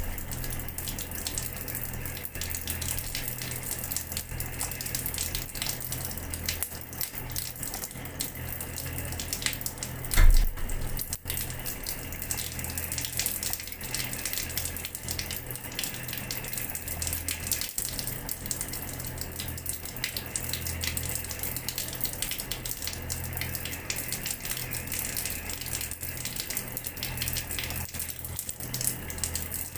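Water running from a tap and splashing steadily onto a floor, a continuous dense spatter. A single short low thump sounds about ten seconds in.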